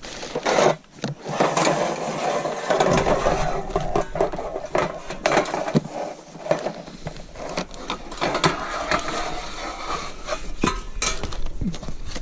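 Anodized aluminum guide rail sections of a chainsaw mill being handled and unpacked: continuous scraping and rubbing against packaging, with many sharp knocks and clicks.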